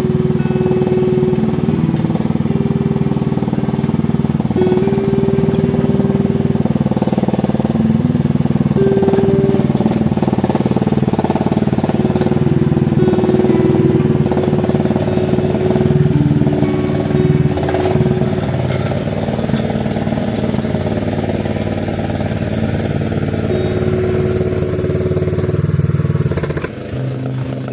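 An engine running steadily under some load, with a higher whining tone that cuts in and out at times. It drops in level about a second before the end.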